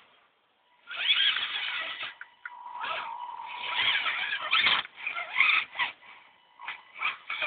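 Electric RC crawler's 19-turn brushed motor and geared drivetrain whining in irregular bursts as the throttle is blipped, rising and falling in pitch, with a thin steady high tone under some bursts. The first burst starts about a second in, after a brief hush.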